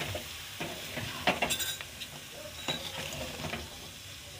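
Wooden spatula stirring amla and jaggery chutney in a steel kadai, scraping against the pan in a few irregular strokes over a steady faint sizzle of the cooking mixture.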